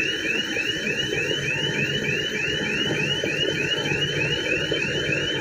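A Tadano ATF 160 all-terrain crane's warning alarm sounding as the crane moves: a rapid, even string of rising chirps, about three and a half a second, over the rumble of its engine.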